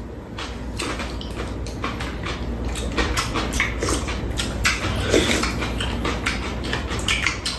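Two people eating at close range: chewing and slurping mouthfuls of food, with spoons and chopsticks clicking against bowls many times. A steady low hum runs underneath.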